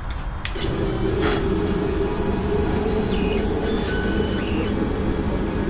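Onefinity CNC router's stepper motors running as the machine is jogged into position: a steady mechanical drone that starts about half a second in, with a high whine stepping up and down in pitch as the motion changes.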